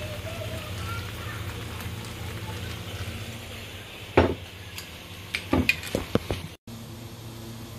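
Pork ribs sizzling in a frying pan over a steady low hum. About four seconds in comes a loud knock, then a quick cluster of several more knocks, and the sound cuts out briefly a little after six seconds.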